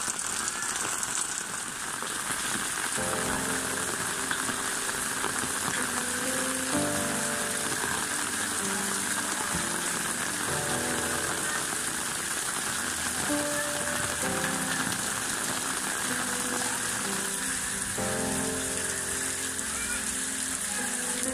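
Steady rain falling and splashing on wet ground, roofs and puddles. Soft background music with held notes comes in about three seconds in and plays under the rain.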